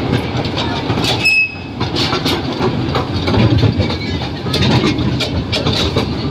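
Small ride train running with its open carriages, heard from on board: a steady rumble with the wheels clattering over the track. A brief high tone comes about a second in.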